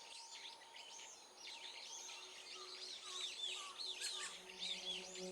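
Several small birds singing and chirping together in a busy chorus of quick, repeated high notes, fairly faint.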